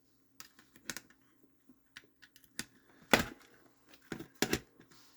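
Scattered sharp clicks and light knocks from handling multimeters and their test leads, the loudest about three seconds in, over a faint steady hum.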